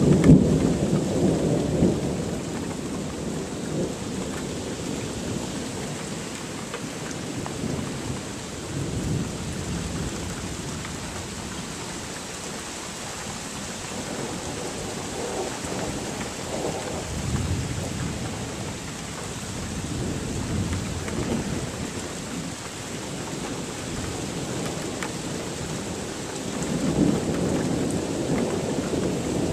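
Thunder rolling and rumbling again and again over steady rain. The loudest rumble comes right at the start, and further rolls swell and fade about a third of the way in, past the middle and near the end.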